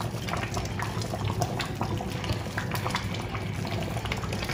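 Pot of thick egusi soup boiling on high heat, a steady run of small bubbling pops and crackles.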